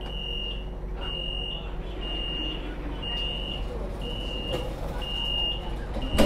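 Tram cab's electronic warning buzzer beeping, seven high even beeps about once a second, over the tram's steady low hum. A loud thump comes near the end.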